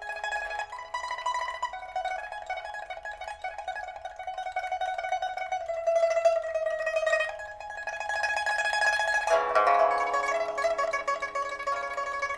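Pipa with a Dalbergia oliveri body, a newly fitted soundboard and new frets, strung with a steel first string and copper second to fourth strings, being played solo: fast repeated plucking carries a melody line. About nine seconds in the playing turns louder and fuller, with several strings sounding together.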